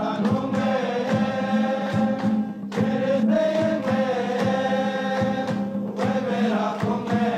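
A group of voices singing a song together to two strummed acoustic guitars, with rhythmic hand clapping.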